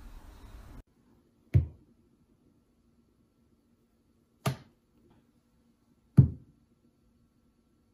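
Three sharp, separate knocks or thumps, a few seconds apart, heaviest at the low end, against a faint steady hum.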